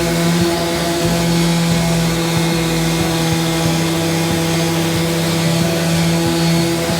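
An electric power tool's motor running steadily: a continuous even hum over a wide hiss, with small irregular knocks underneath.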